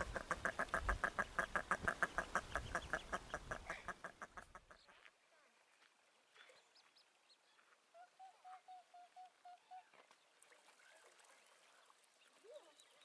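A duck calling in a fast, even series, about seven calls a second, that stops after about five seconds; later a short run of faint, high peeps.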